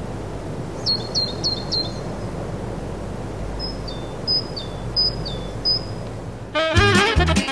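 A small songbird calling: a quick run of four short high notes, then after a pause four two-part notes, each dropping in pitch, over a steady low outdoor background noise. Music starts near the end.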